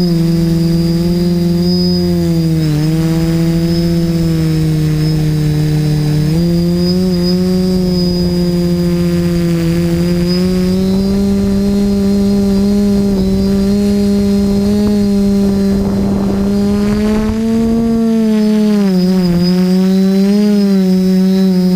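Multirotor drone's electric motors and propellers humming steadily with a thin high whine above them, recorded on board. The pitch shifts with the throttle: it dips about three seconds in, steps up around six seconds, then rises and drops again near the end.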